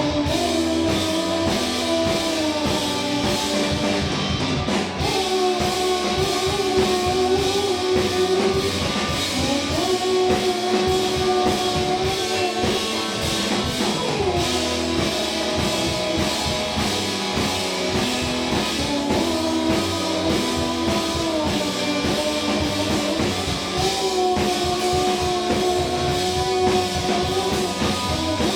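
Live indie rock band playing guitar and drum kit at a steady beat, with a melody of long held notes.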